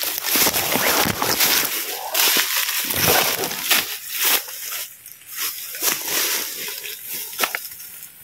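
Irregular rustling and crunching of leaves and undergrowth, made up of many short crackles that come and go unevenly.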